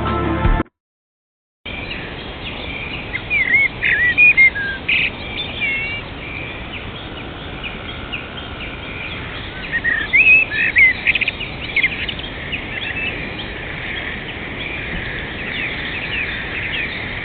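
Small birds chirping and singing, short whistled notes sliding up and down, over a steady background hiss; the singing comes in livelier bursts a few seconds in and again about ten seconds in.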